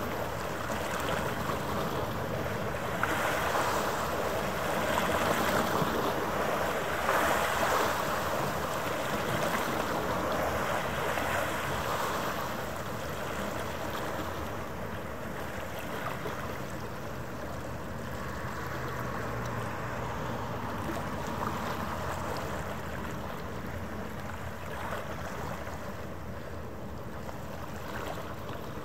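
Small harbour waves washing against the shore, swelling in several surges in the first half and then settling to a steadier wash, over a faint steady hum.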